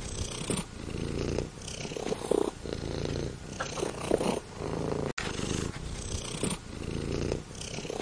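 Domestic cat purring, pulsing with each breath about once a second. The purr breaks off abruptly about five seconds in and starts straight over, as a looped recording.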